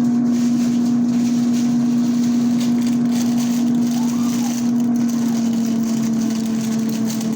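Steady mechanical hum with one strong low tone, unchanging in level.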